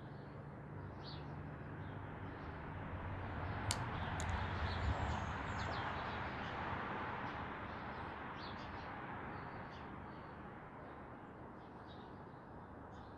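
Explosive demolition of a power station structure heard from a distance: two sharp cracks about four seconds in, then a low rumbling roar that swells and dies away slowly over several seconds. Birds chirp throughout.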